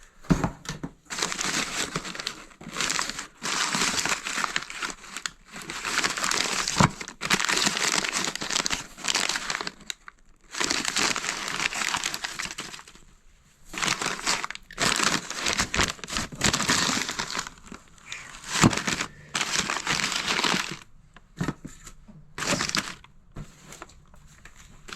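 Rummaging through boxed belongings: long crinkling stretches of wrapping or bags being handled, a few seconds at a time with short pauses between, and a few sharp knocks.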